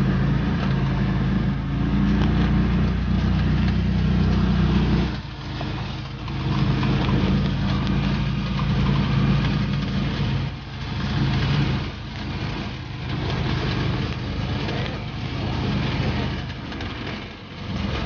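Argo amphibious ATV's engine running, steady at first, then dropping off about five seconds in and rising and falling in level after that.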